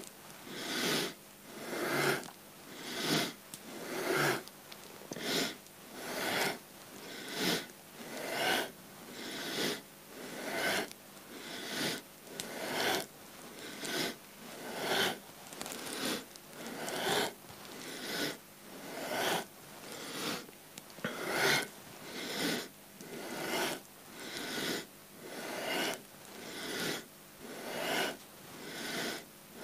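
A person breathing forcefully and rhythmically through the nose, about one breath a second, inhaling as the torso rises and exhaling as it folds forward in a seated forward bend.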